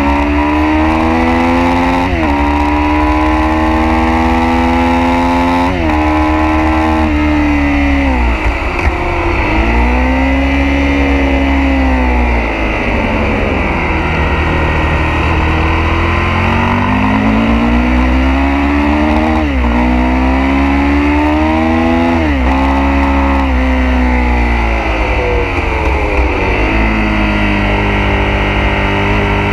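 Sport motorcycle engine heard from onboard at race pace: revs climb and drop sharply at quick upshifts about 2 and 6 seconds in, fall away under braking into a corner, then climb again with two more upshifts before easing for the next bend. Wind rushes over the microphone throughout.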